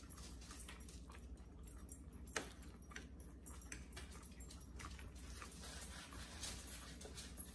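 Faint sounds of a pet dog moving about close by: scattered light clicks and one sharper click about two and a half seconds in.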